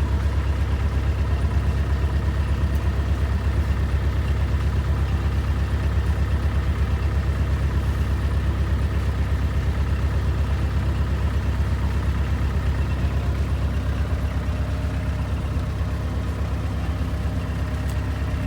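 A heavy machine's engine running steadily with a low, even pulse.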